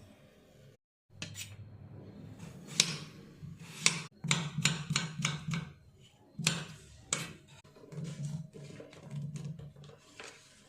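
Kitchen preparation clatter: a run of irregular sharp knocks and clicks, like utensils or a knife striking a board, over a low intermittent hum.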